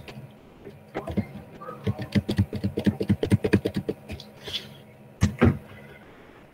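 Computer keyboard being typed on: a quick run of clicks from about a second in until about four seconds, with a louder knock at the start and another pair a little after five seconds, over a faint steady hum.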